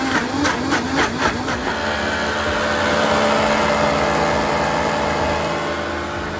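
Vitamix blender motor running at speed, blending a milk-and-banana smoothie, with a few knocks against the jar in the first second and a half, then a steady whir that eases slightly near the end.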